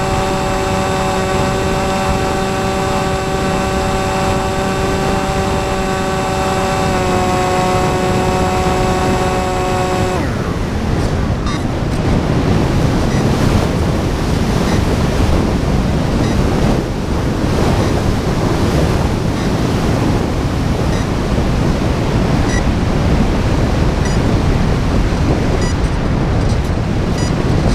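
Electric brushless outrunner motor and 6x4 propeller of a flying wing whining steadily, its pitch dipping slightly about seven seconds in, then cutting out about ten seconds in as the plane loses power. After that there is only wind rushing over the onboard camera as the wing glides without power.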